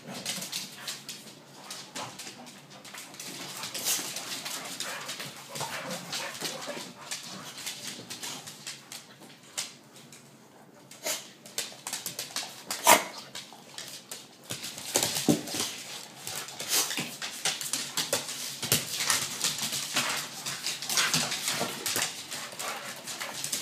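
Pit bull-type dogs playing: barks and whimpers mixed with many short sharp clicks and scuffles of paws on a wooden floor. There is one loud sharp sound about thirteen seconds in, and the play gets busier in the second half.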